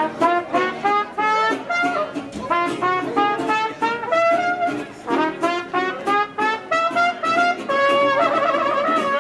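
A live band playing jazz-style music: a horn carries the melody in held notes over short, repeated chords and a steady beat.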